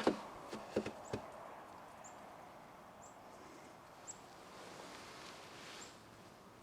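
A few soft knocks in the first second, then faint high chirps from a small bird, spaced about a second apart, over a quiet outdoor background.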